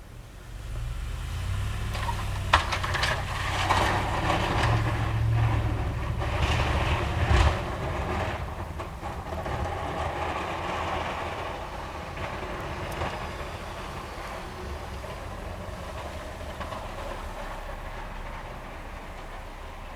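A heavy vehicle passing: a low rumble that swells within the first second, is loudest over the first eight seconds with a few sharp knocks, then slowly fades away.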